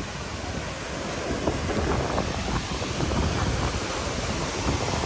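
Wind buffeting the microphone: a steady rushing noise with uneven low rumbles.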